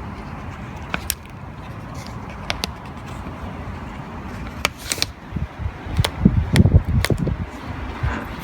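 Scattered light clicks and taps of hand-work on a car door's inside latch mechanism, with low bumps and knocks about six to seven and a half seconds in.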